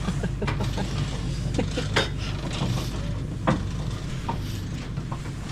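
Scattered knocks, clicks and scraping as the lift basket's side tyres roll and bump against the rock wall of the volcano shaft, with two sharper knocks about two and three and a half seconds in, over a steady low hum.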